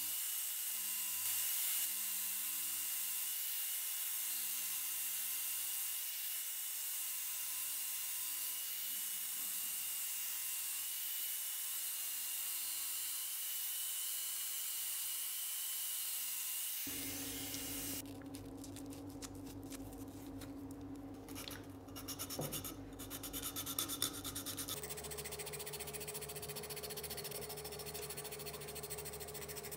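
Wood being worked by rubbing or abrading, a steady scratchy hiss. About halfway through the sound changes abruptly to a lower steady hum with scraping, and it changes again near the end.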